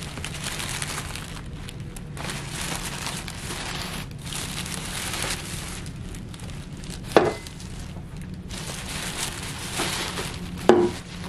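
Tissue paper rustling and crinkling in bursts as it is handled, with two sharp knocks, about seven seconds in and again near the end.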